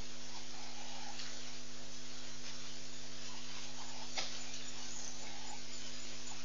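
Steady electrical hum and hiss from a live webcam's audio feed, with a few faint clicks; the clearest click comes about four seconds in.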